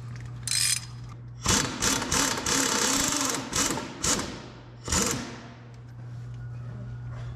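A power wrench running in several short bursts, the longest about two and a half seconds, loosening bolts, over a steady low hum.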